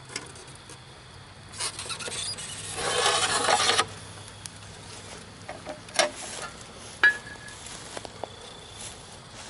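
Molten aluminum sizzling and crackling as it runs down into the soil of a fire ant mound: a hiss that swells for about two seconds and then cuts off sharply. A few sharp pops follow.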